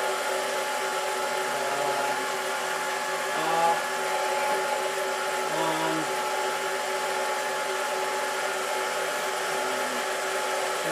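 Harbor Freight mini lathe running steadily in low speed with its power feed engaged, driving the carriage: an even motor and gear-train hum with a steady tone over it.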